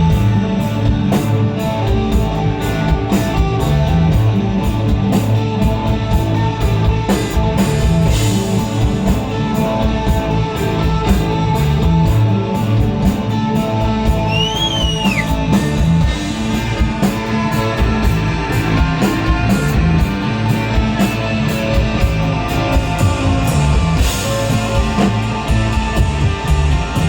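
Live rock band playing an instrumental passage: electric guitar over bass and a drum kit keeping a steady beat.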